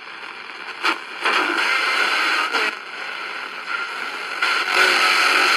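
QFX R-9 portable radio's speaker hissing with static as its dial is tuned across the shortwave band, the noise changing level several times as it moves. Poor reception, which is put down to AM or FM bleed-over on the shortwave bands.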